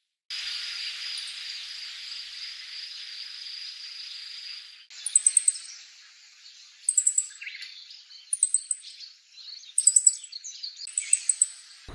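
Meadow bunting giving short, very high call notes in quick clusters of a few chirps, five clusters spaced a second or two apart over the second half. Before them a steady high whine over hiss runs for about five seconds and cuts off abruptly.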